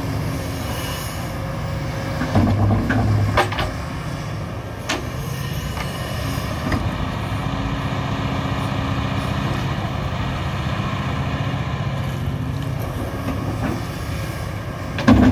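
Cat 352F tracked excavator's diesel engine running steadily with hydraulic work noise as it digs and swings, labouring louder for a second or so about two and a half seconds in. Near the end, a loud crash of soil and rock dropping from the bucket into the dump truck's steel body.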